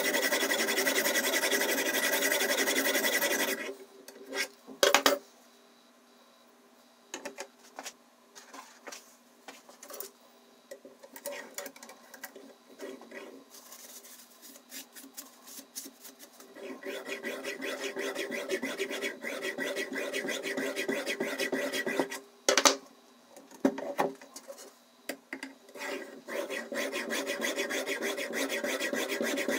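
Diamond whetstone on a guided-rod knife sharpener rasping along a steel steak knife's edge in rapid back-and-forth strokes. The stroking stops a few seconds in, giving way to sharp clicks and soft handling sounds, resumes about halfway through, breaks again at a loud click, and starts up once more near the end.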